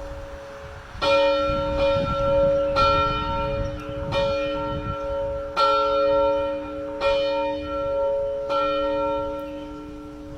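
A single church bell ringing: about five strokes, roughly one and a half to two seconds apart. Each stroke rings on into the next, over a hum left from the stroke before.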